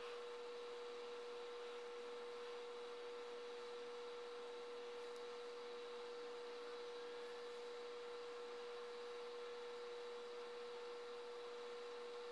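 A faint, steady electrical tone: one unchanging mid-pitched hum over a soft hiss, with a few weaker tones above it.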